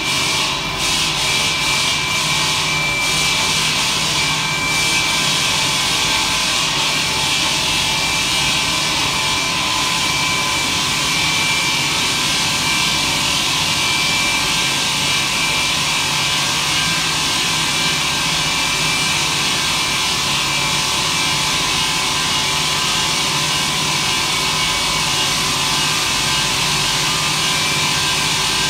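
CNC diamond wire saw running, its water-cooled wire cutting through a granite block: a steady rasping hiss with faint steady whining tones underneath, and a few faint ticks in the first few seconds.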